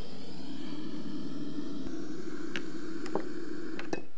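Water being poured steadily into a samovar, a continuous rushing pour that cuts off abruptly at the end, with a few light clicks along the way.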